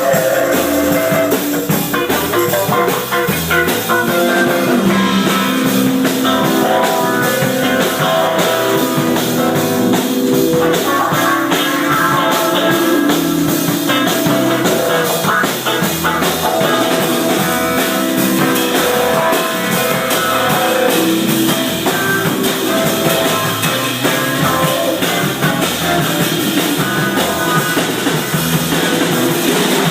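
Rock band playing live, with guitar and drum kit, continuous and loud.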